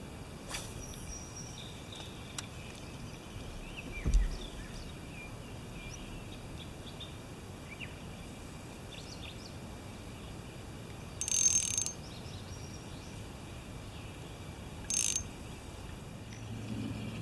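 Quiet outdoor river ambience with scattered faint bird chirps, a single low thump about four seconds in, and two short hissing bursts later on.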